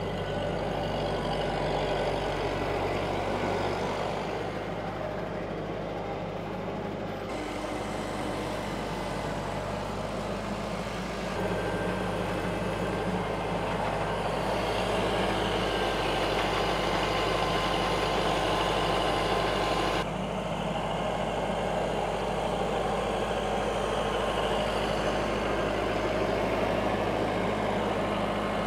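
An engine running steadily with a low hum. Its tone and loudness change abruptly three times.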